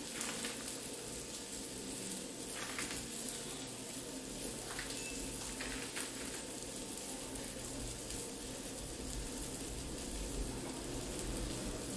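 Oat farofa frying in a nonstick pan, a soft steady sizzle with a few faint ticks.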